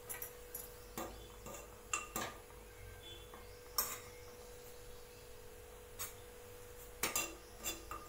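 Steel spoon clinking against a small stainless-steel bowl: light, sharp clinks spread irregularly, with a cluster near the end, over a faint steady hum.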